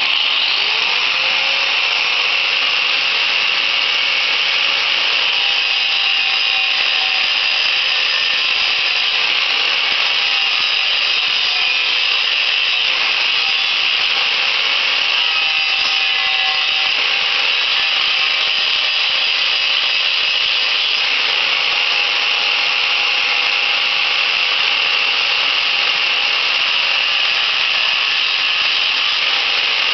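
A motor-driven machine spins up, its tone rising in the first second, then runs steadily under a loud, even hiss.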